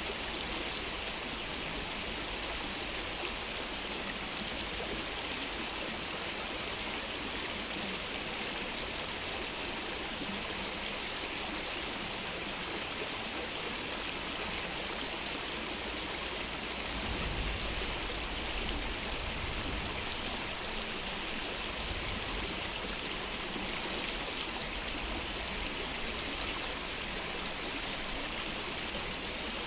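Small stream in Todoroki Valley flowing steadily, an even rushing of water. A low rumble rises under it about 17 seconds in and fades over a few seconds.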